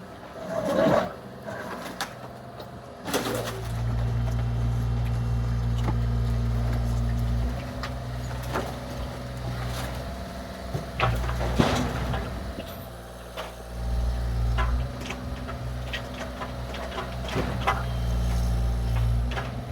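Excavator's diesel engine running, getting louder in stretches as it works under load, with several sharp crashes and clatters of the garage debris being broken and dropped.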